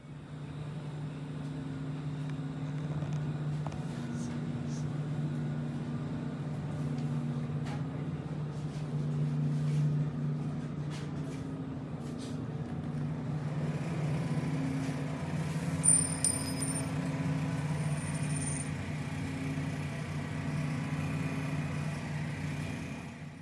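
Supermarket ambience: a steady low mechanical hum from the store's refrigeration and ventilation, one of its pitches pulsing on and off. A few faint clicks, and a brief high-pitched tone about two-thirds of the way through.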